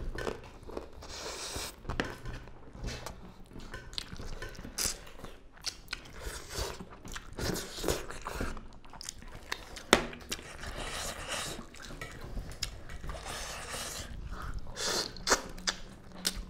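Two people chewing and biting into duck curry and rice eaten by hand: wet, irregular chewing and crunching close to the microphone, with one sharp click about ten seconds in.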